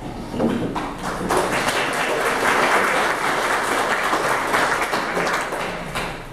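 Small audience clapping, building up over the first second and dying away near the end.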